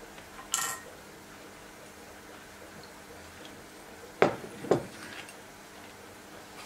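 Parts of a Wicked Edge guided knife sharpener clinking together: a brief scrape about half a second in, then two sharp clicks half a second apart near four seconds in, as a stone paddle knocks against the metal clamp.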